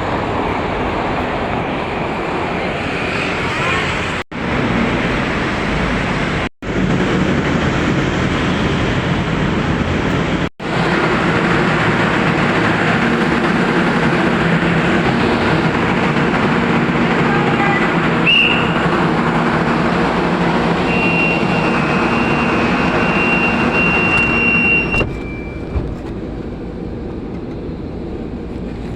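Steady vehicle noise with an engine's low hum, broken by three short gaps, with a high, steady squeal-like tone for about four seconds in the second half before the noise drops off.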